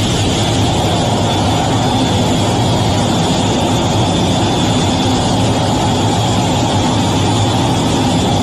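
F/A-18's twin jet engines running at a steady, unchanging level, heard from inside the cockpit while the jet waits on the carrier deck before launch.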